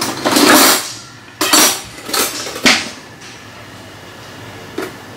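Plate of jollof rice under plastic cling film being handled: several short rustles and clinks of cutlery and plate in the first three seconds, one sharp clink among them, then a quiet pause and one more short rustle near the end.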